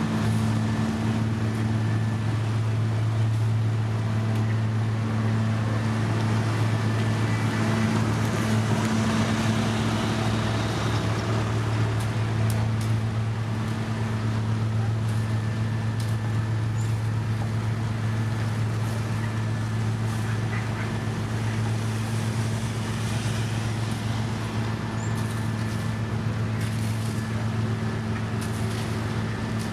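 Diesel engine of heavy asphalt-paving machinery running steadily with a deep, even hum, with a few faint clicks and knocks over it.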